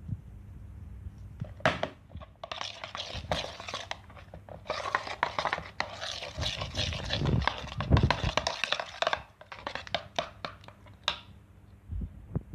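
Glitter slime being squished and kneaded by hand: dense wet crackling and popping, with a few low thuds near the middle.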